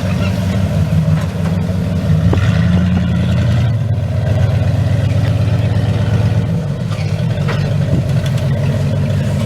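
Off-road vehicle's engine running at low revs, holding mostly steady with small rises and falls in pitch, as it works over a rock obstacle.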